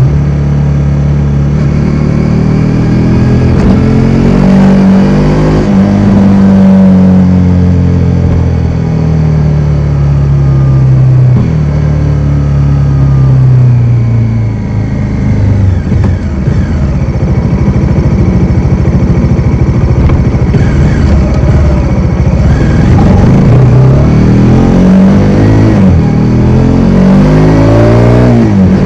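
Bajaj Dominar 400's single-cylinder engine under way, loud and steady, its revs climbing and dropping several times as the bike accelerates and slows.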